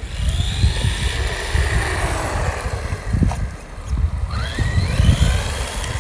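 Electric whine of two 350 W hoverboard hub motors driving an RC chassis, gliding up and down in pitch as it speeds up and slows, with a sharp rise about four and a half seconds in. Low gusting rumble of wind on the microphone underneath.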